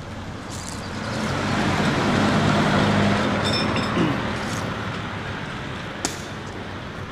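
A motor vehicle driving past on the road, its engine and tyre noise swelling to its loudest about two to three seconds in and then fading away.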